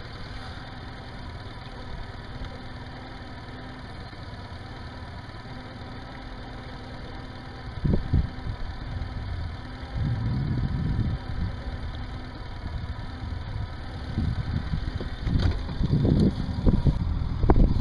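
Tohatsu four-stroke outboard motor idling steadily while it warms up. From about eight seconds in, louder uneven low rumbling comes and goes over the idle.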